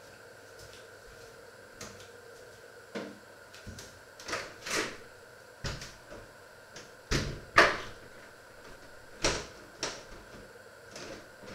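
A string of irregular knocks and clatter, like cupboard doors and kitchen things being handled, over a faint steady hum. The loudest knocks come a little past the middle.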